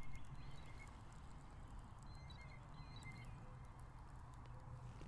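Quiet outdoor ambience: a low steady rumble with a few faint, short high chirps.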